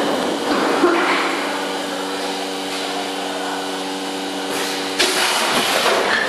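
Vertical packing machine with an auger powder filler running: a steady motor whir with a hum of several even tones, growing louder and noisier from about five seconds in.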